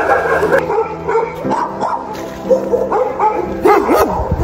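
Dogs barking in shelter kennels, with short cries that bend up and down in pitch near the end, over background music.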